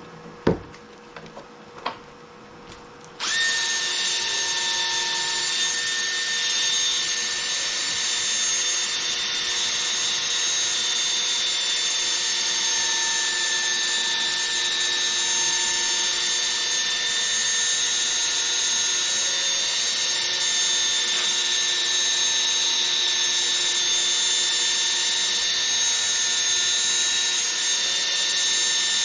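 A couple of sharp clicks, then about three seconds in a cordless drill starts up and runs steadily, spinning a 3000-grit 3M Trizact sanding pad against a plastic headlight lens. It makes a steady motor whine over a hiss.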